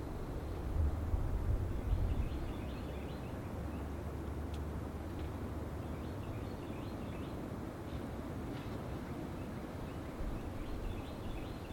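Wind rumbling and buffeting on the microphone, gusting harder in the first two seconds, with faint scattered bird chirps at a distance.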